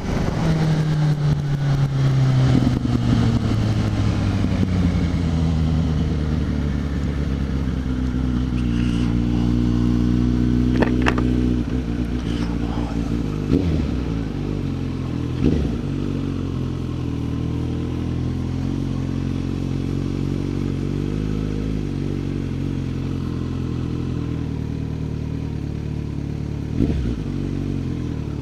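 Suzuki GSX650F's inline-four engine heard from the rider's seat as the bike slows, its note falling over the first several seconds, then running steadily at low revs while it rolls at walking pace. A few short knocks come through along the way.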